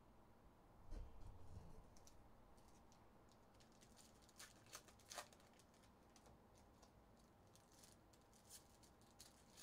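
Near silence: faint room tone with a soft low thump about a second in and a few faint light clicks and taps scattered through the rest.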